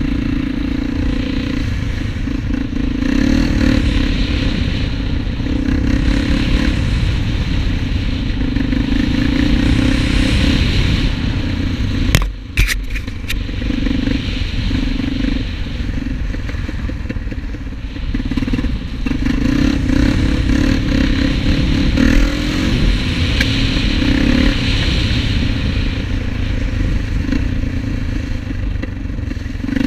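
Honda TRX400EX quad's single-cylinder four-stroke engine running while being ridden, the throttle repeatedly opening and easing off, with a brief break about twelve seconds in.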